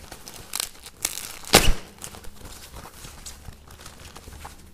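Plastic packaging being crinkled and torn open by hand: irregular rustling with a loud rip about a second and a half in.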